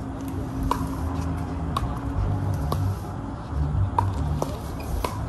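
Pickleball rally: sharp, hollow pocks of paddles striking the ball, about one a second with six in all, over a steady low rumble.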